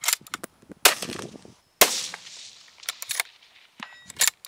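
Rifle shots from a scoped bolt-action rifle rested on a tripod: two loud cracks about a second apart, each trailing off, among shorter sharp clicks and knocks. A brief ringing tone comes near the end.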